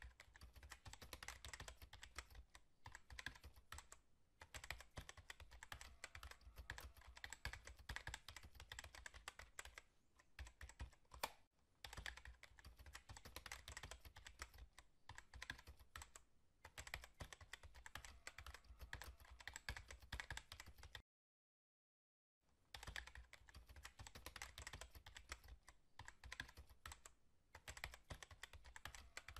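Rapid computer keyboard typing: a dense, continuous run of key clicks broken by brief pauses, cutting out completely for about a second and a half two-thirds of the way through.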